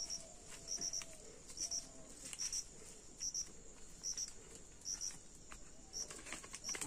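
An insect chirping in an even rhythm, a short high double chirp a little under once a second, over a steady high-pitched insect hum, with faint rustling steps through undergrowth.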